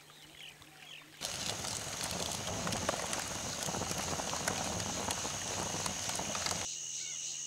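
A steady chirping of crickets, with a dense patter of many rapid small clicks and rustles over it that starts suddenly about a second in and cuts off near the end.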